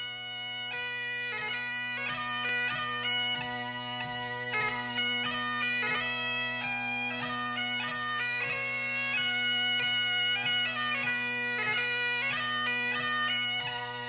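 Bagpipe music: steady drones with a melody played over them.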